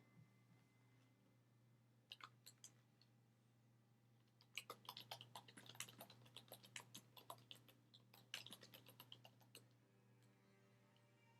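Faint typing on a computer keyboard: a few keystrokes about two seconds in, then a fast, uneven run of keystrokes lasting about five seconds, over a low steady hum.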